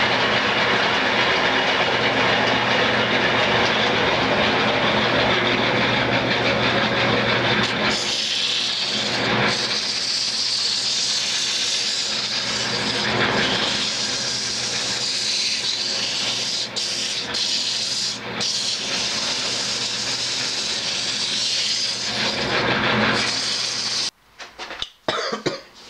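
Wood lathe running with sandpaper pressed against the spinning cherry-and-maple spindle: a steady sanding hiss over the motor's hum, working through the grits from 80 up. The hiss grows stronger about eight seconds in, and the noise cuts off abruptly near the end.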